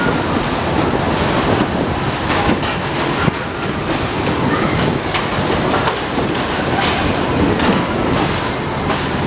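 Zipper carnival ride machinery giving a steady rumbling din, with irregular metallic clicks and clanks from the cars' steel cage doors and latches as riders are loaded.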